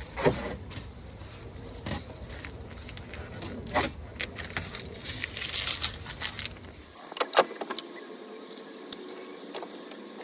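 Masking tape being peeled off car window glass, with small clicks and knocks of handling and a longer tearing rasp about five seconds in.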